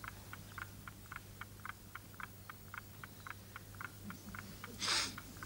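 Steady, quiet ticking at about four ticks a second from the unexploded bomb's clockwork fuse, over a low hum. Near the end there is one loud rush of breath.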